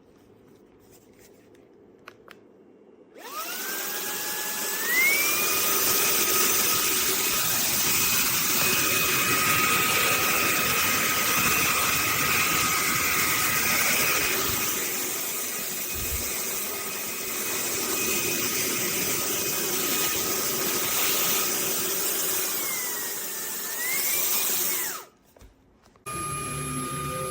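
Handheld cordless vacuum switched on about three seconds in, its motor spinning up with a rising whine and then running steadily. Near the end its pitch dips and climbs again before it cuts off, and a moment later a motor starts again with a steady, higher whine.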